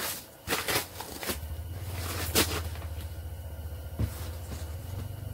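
Handling noise close to the microphone: several sharp clicks and knocks with rustling of snowsuit fabric, over a low steady rumble that sets in after about a second.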